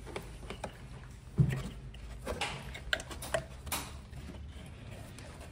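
Scattered clicks and knocks of hand tools and parts being handled during spark plug work on a scooter engine, the loudest knock about one and a half seconds in.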